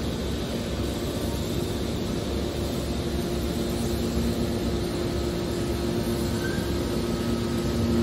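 Hydraulic scrap metal baler's power unit running, a steady mechanical hum with two held tones over a noisy drone.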